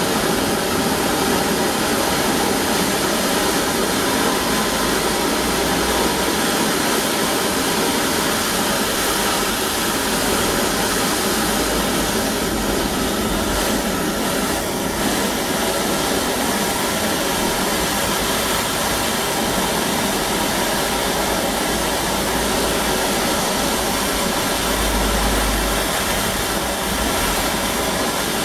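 Handheld gas blowtorch burning steadily, a continuous hissing rush, as its flame heats a wet copper pipe joint for soldering with water still running through the pipe.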